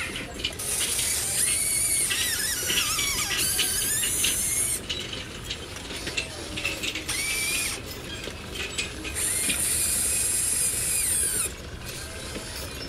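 Small electric gear motors of a remote-controlled toy excavator whining and gear-grinding in bursts as the machine moves: a long run at the start, a short burst in the middle, and another long run near the end.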